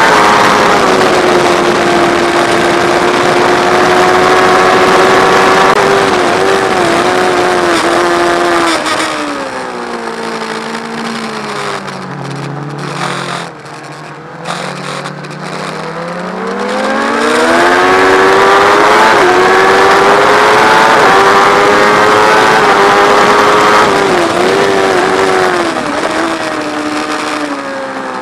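Sport motorcycle engine at high revs, winding down from about a third of the way in as the rider brakes and shifts down for a slow corner, then revving back up hard out of it and holding high revs before easing off again near the end, with a steady rushing noise that thins at the slowest point.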